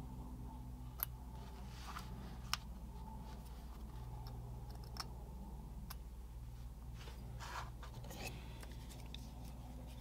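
A handful of small, sharp clicks and light scrapes from a metal pick tool and fingertips working a tiny plastic vent box and its photo-etched metal grille, the sharpest click about two and a half seconds in, over a steady low hum.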